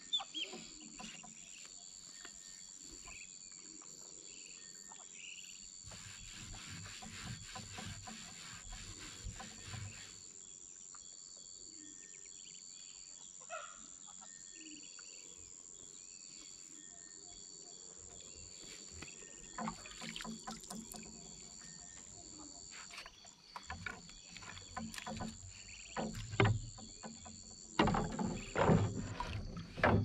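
Wooden canoe being handled at the water's edge: scattered knocks and thumps on the hull as a person shifts and moves about in it. The knocks grow louder and more frequent near the end. Behind them is a steady high whine with faint bird chirps.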